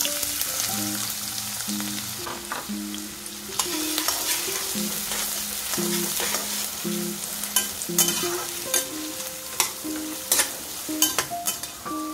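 Chopped onion sizzling as it drops into hot oil in a stainless-steel pan, then frying steadily while stirred, with sharp clicks and scrapes of a metal spatula against the pan, more of them in the second half. Light background music with short plucked notes plays underneath.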